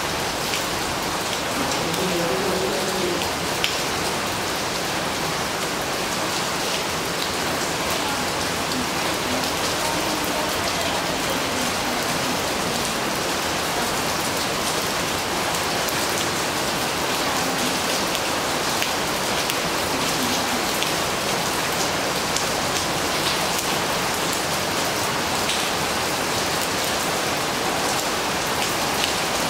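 Steady, gentle rain falling, with the fine patter of many individual drops striking the surface.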